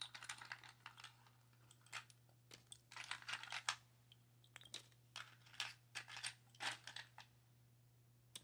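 Faint, irregular clicking and light clattering of Crayola colored pencils knocking against one another as they are set into a storage basket, with a denser clatter about three seconds in.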